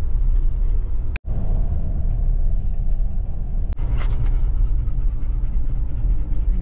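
Steady low rumble of a moving car heard from inside the cabin: road and engine noise while driving. It drops out for an instant about a second in.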